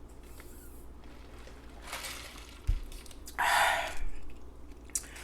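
A woman's breath in, a soft low knock, then a loud breathy sigh lasting about half a second.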